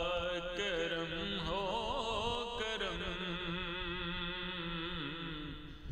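Background vocal music: a solo voice chanting in long, wavering held notes, dipping briefly near the end.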